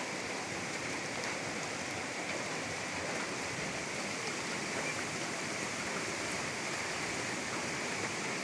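Steady, even rushing of water, which fits floodwater flowing.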